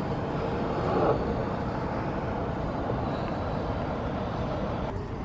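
Steady low hum of distant city traffic heard from high up, with light wind on the microphone.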